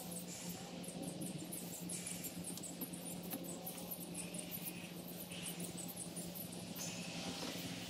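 Small birds chirping in many quick, high-pitched twitters, over a steady low hum.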